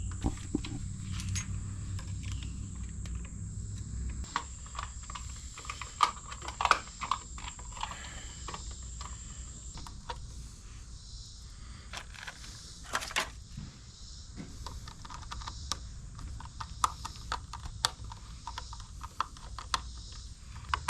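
Scattered clicks, taps and knocks of hand work on a plastic electrical box and its wiring. Under them is a low hum that fades out about four seconds in, and a steady high insect drone that stops about ten seconds in.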